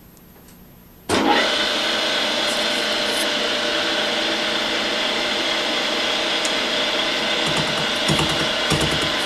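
Brown and Sharpe No. 2 universal milling machine facing metal with a 5-inch carbide-tipped shell mill at about 95 rpm: about a second in, a loud steady cutting noise starts suddenly, with several steady high-pitched tones in it and a low pulsing near the end.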